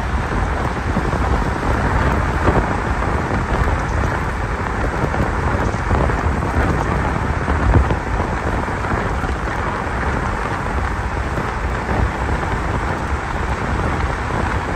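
Steady, deep rush of wind buffeting the microphone, with tyre noise from a Dualtron Victor electric scooter riding on asphalt.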